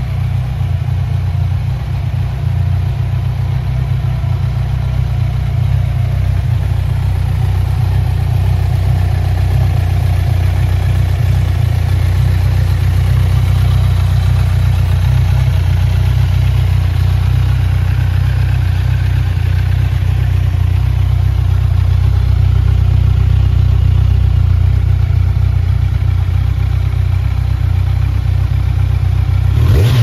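Kawasaki Z1000's 1,043 cc inline-four engine idling steadily through an aftermarket Yoshimura slip-on silencer.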